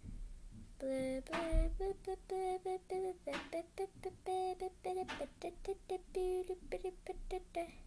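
A girl's voice singing a wordless tune to herself in short, quick notes, mostly on one repeated pitch.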